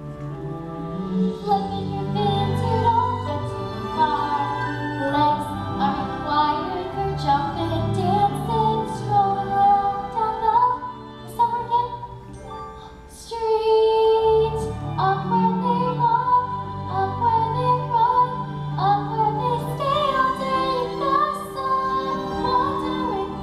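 A female singer performs a solo song over instrumental accompaniment in a live stage musical. The singing breaks off briefly a little past halfway, then resumes on a held note.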